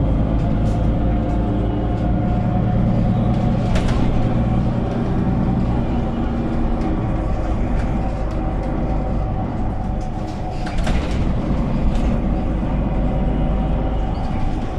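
Cabin sound of a Mercedes-Benz O530GL Capacity articulated city bus under way: steady diesel engine and road noise, the engine note changing about six seconds in, with a few short hisses.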